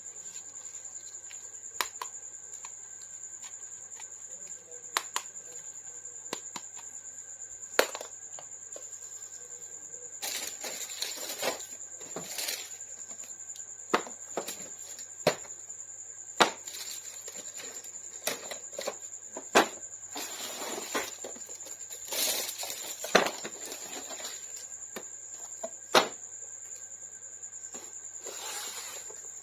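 Plastic toy packaging and action figures being handled: scattered sharp clicks and taps, with a few stretches of crinkling rustle, over a steady high-pitched tone.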